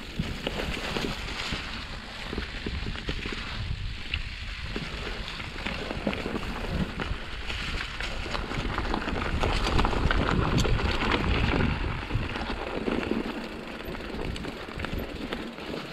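Mountain bike riding down a rough trail: wind rushing over the microphone, tyre noise on the ground and scattered clicks and rattles from the bike, louder for a few seconds past the middle.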